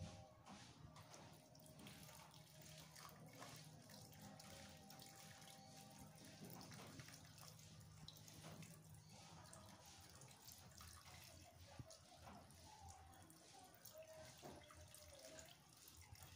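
Faint trickle and drip of pig's blood poured slowly from a saucepan through a mesh strainer into a pot of stew. It goes in a little at a time to keep the blood from curdling.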